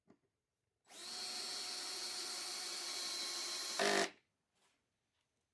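DeWalt 12-volt cordless drill driver running steadily for about three seconds, driving a screw that fixes a hanging bracket to a cabinet side panel. It ends with a brief louder spurt just before it stops.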